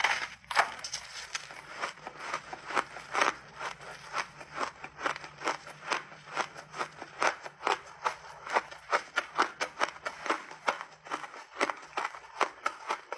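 Close-miked chewing of crunchy refrozen mixed-berry ice: a bite into a chunk, then rapid sharp crunches, about three a second.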